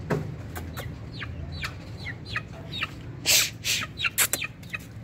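Aseel chicken giving repeated short clucks that fall in pitch, two or three a second: alarm clucking from a bird being chased to be caught. Two short, loud rustling bursts come a little past three seconds in.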